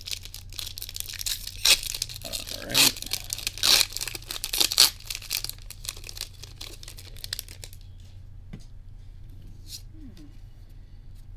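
The foil wrapper of a Japanese Pokémon Scarlet ex booster pack being torn open and crinkled, with several loud sharp rips in the first five seconds. After about seven and a half seconds the crackling stops and only faint clicks of the cards being handled remain, over a steady low hum.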